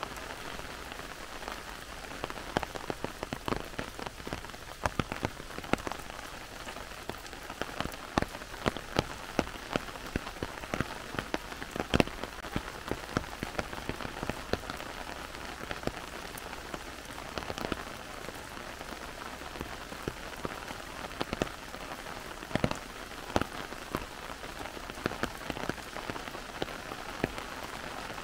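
Heavy rain falling in a forest: a steady hiss of rain with many sharp, close drop hits scattered through it, the loudest about twelve seconds in.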